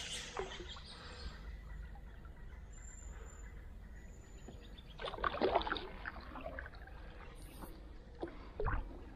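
Canoe paddle working in still water: a burst of splashing and dripping from the blade about five seconds in, then two shorter splashes near the end.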